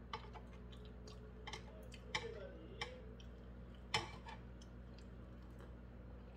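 Thin metal chopsticks clicking and scraping against a nonstick frying pan as a dumpling is picked up: a handful of sharp, irregular clicks, the loudest about four seconds in, over a steady low hum.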